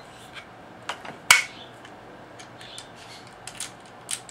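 Metal parts of a Winchester Model 63 .22 takedown rifle rubbing and clicking as its two halves are pushed forward onto each other, with one sharp metallic click about a second in and lighter scrapes and clicks after.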